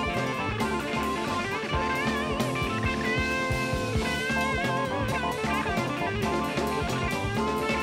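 Live progressive rock instrumental: an electric guitar plays a lead line of held notes with wide vibrato, over a drum kit and steady sustained chords.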